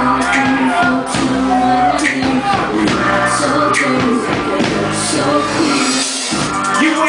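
Live band playing loudly: drums with cymbal hits about once a second and electric guitar, with a male vocalist singing into a microphone.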